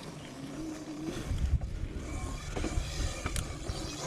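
Sur Ron electric dirt bike being ridden on a dirt trail: a steady rumble of wind and tyres, with a few sharp knocks and rattles from the bike over bumps and a faint motor whine near the start.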